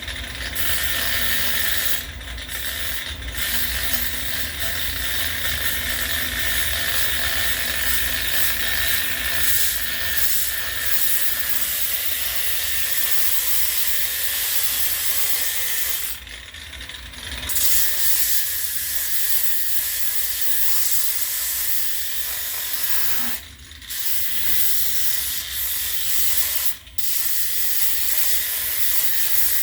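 Makita angle grinder running with a sanding disc and grinding into a white oak axe handle: a steady whining hiss that eases off briefly a few times.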